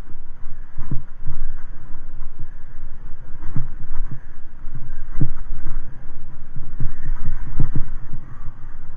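Wind buffeting the microphone of a handlebar-mounted camera on a bicycle riding a rough, puddled dirt track, a steady low rumble broken by irregular low thumps as the bike jolts over the bumps.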